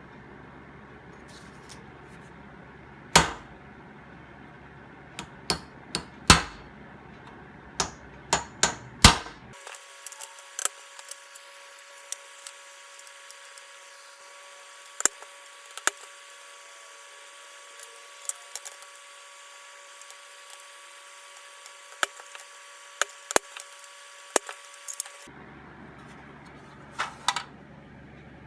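Irregular knocks, taps and clicks of hand-tool work, with the loudest knocks in the first third. A faint steady hum runs through the middle stretch.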